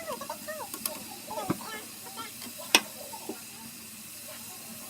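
Cut potatoes deep-frying in hot oil in a pot, a steady sizzle. There is a dull knock about one and a half seconds in and a single sharp click near the middle.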